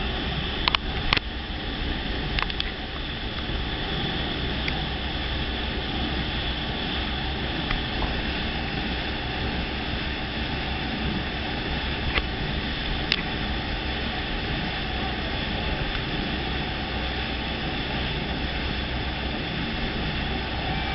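Dive boat under way: the steady drone of its engine mixed with the rush of its churning wake. A few brief sharp clicks come in the first couple of seconds and twice more just past the middle.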